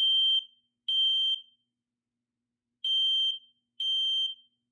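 Smoke alarm sounding on its test button after a fresh battery is fitted: loud, high-pitched half-second beeps about a second apart, in the three-beep evacuation pattern, with a pause of about a second and a half between groups.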